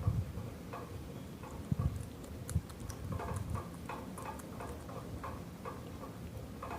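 A rabbit chewing mango: small moist chewing clicks repeating a few times a second, with a few soft low thumps in the first few seconds.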